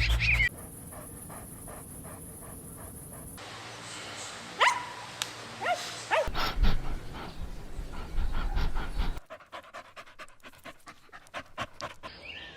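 Puppies panting rapidly, with a few short high yelps near the middle; the background changes abruptly several times where short clips are spliced together.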